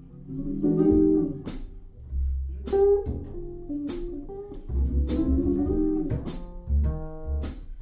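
Jazz-blues instrumental introduction led by guitar, with plucked chords over deep bass notes and occasional sharp cymbal hits.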